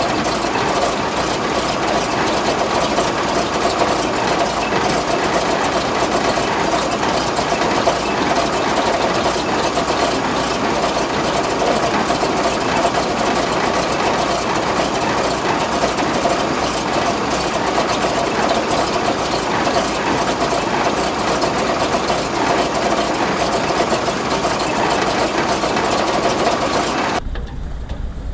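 Truck engine idling with a fast, even clatter. It cuts off abruptly near the end, giving way to a quieter low rumble.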